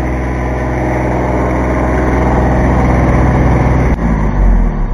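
Kubota B2320 compact tractor's diesel engine running steadily and growing louder. About four seconds in its note breaks off and drops, followed by a heavy low thump.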